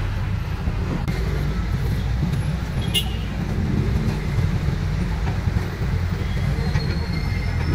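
Busy city street traffic: a steady rumble of car engines and tyres in slow traffic, with a sharp click about three seconds in and a short high tone near the end.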